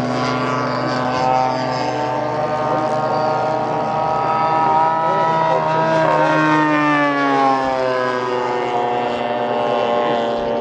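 Radio-controlled model airplane engine running at flying speed as the plane passes low and climbs away. The engine note wavers and bends in pitch, falling noticeably in the second half.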